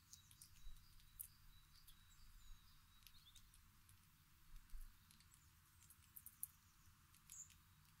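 Faint, sharp little clicks and crackles, irregular, of a European goldfinch pecking and prising seeds from a dry teasel seedhead, with a few faint, brief high bird chirps.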